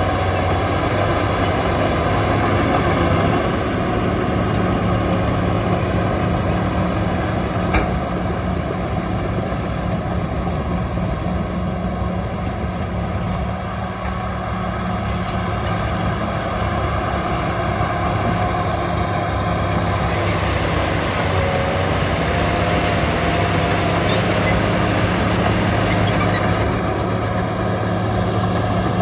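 Shantui DH17 bulldozer's diesel engine running steadily while working, easing slightly around the middle and picking up again. A single sharp clank comes about eight seconds in.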